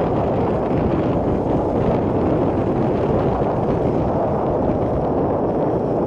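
A car driving at low speed: a steady rumble of engine and road noise heard from inside the cabin.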